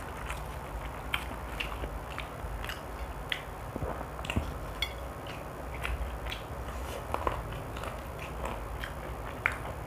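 Eating crispy fried chicken: scattered sharp clicks and crunches of biting and chewing the breaded chicken, over a steady low hum.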